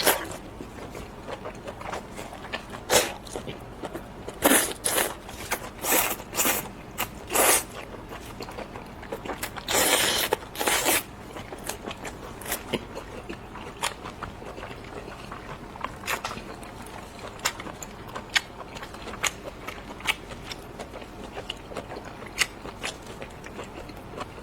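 Close-miked biting and chewing of marinated seafood: irregular crunches and sharp clicks, with a cluster of louder, longer crunches in the first half, then sparser small clicks.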